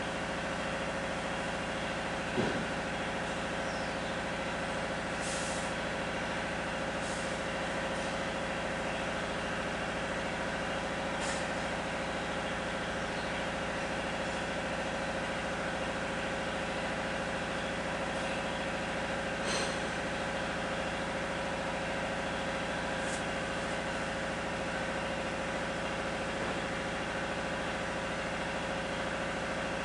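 A steady mechanical hum with several fixed pitches, like a running motor or engine. A few faint short clicks are scattered through it, and a soft thump comes about two and a half seconds in.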